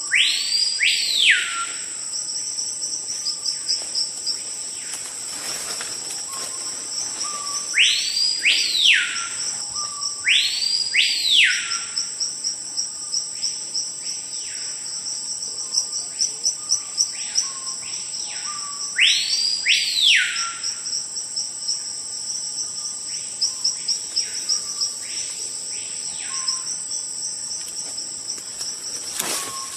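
Screaming piha (cricrió, capitão-do-mato) calling: loud whistled notes that sweep sharply up and back down, each ending in a short lower note, repeated every few seconds, with fainter calls of the same kind in between. A steady high insect buzz and rapid insect chirping run beneath.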